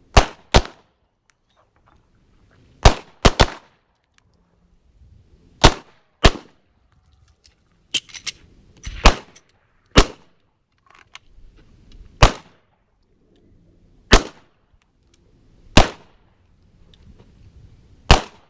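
Pistol shots from several shooters firing slow, aimed fire on a range line: about a dozen sharp reports at uneven intervals, sometimes two or three within half a second, some fainter than others.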